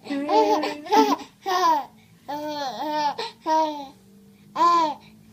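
Baby laughing and babbling in a string of about seven short, high-pitched bursts.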